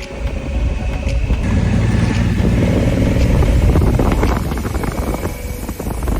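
Small motorcycle engine running, growing louder about a second and a half in and easing off after about four seconds.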